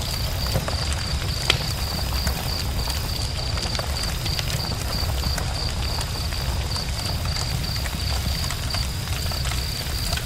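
Campfire burning: a steady low rumble of flames with scattered crackles and small pops, one sharper pop about a second and a half in.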